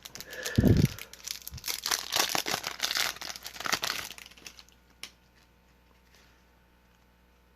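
A Yu-Gi-Oh! Maximum Gold booster pack wrapper being torn open and crinkled: a dense run of crackling for about four and a half seconds, with a dull thump near the start and a single click about five seconds in.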